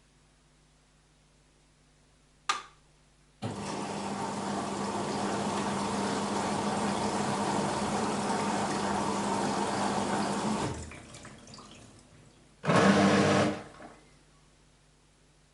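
BEKO WMB 51441 washing machine filling with water. A sharp click, then water rushes in for about seven seconds and tapers off. A second short burst of inflow lasts about a second near the end.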